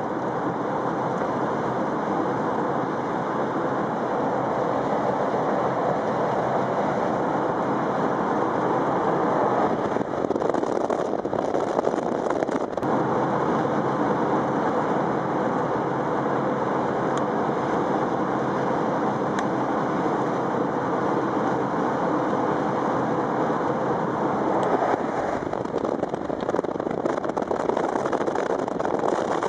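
Steady engine and tyre noise of a car cruising on a sealed highway, heard from inside the cabin, fading in over the first second.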